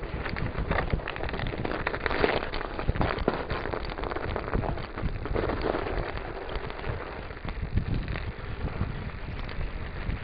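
Mountain bike ridden over a snow-covered, rutted track: the tyres crunch through the snow and the bike rattles, a dense, irregular crackle.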